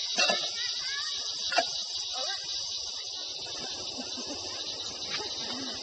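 Steady high-pitched chorus of crickets or similar insects, with two sharp knocks, one just after the start and a louder one about a second and a half in.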